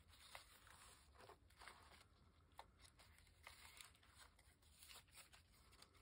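Near silence, with faint scattered rustles and soft ticks of paper as a handmade paper journal is handled and its cover and pages are opened.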